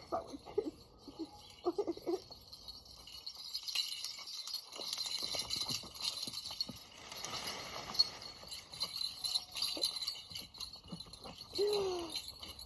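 Flowing creek ambience: a steady high tinkling hiss with scattered light clicks and ticks. A short falling call comes near the end.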